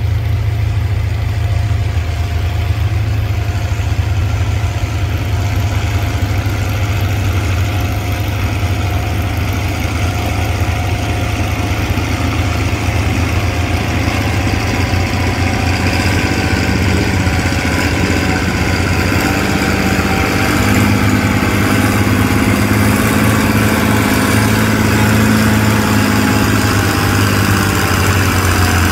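Antique farm tractor engine running steadily with a deep, rapid firing beat, growing louder and fuller over the second half.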